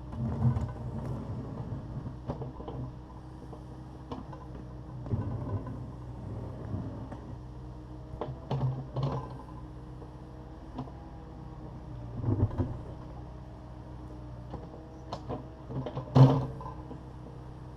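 Takeuchi TB260 excavator's diesel engine running steadily, with about five heavy clunks and scrapes of the bucket working broken concrete; the loudest comes near the end.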